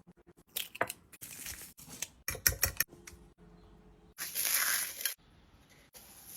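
Crinkling, tearing handling noises with a run of quick taps, then a loud hissing rush of about a second starting about two-thirds of the way through, and a shorter one near the end.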